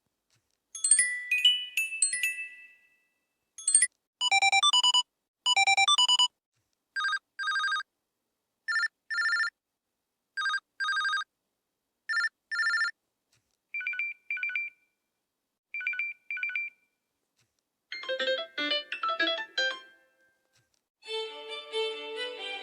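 LG phone notification and ringtone sounds played one after another, with silence between them. A chime comes about a second in, then pairs of short electronic beeps every second or two at a few different pitches, and a brief busier tune near the end.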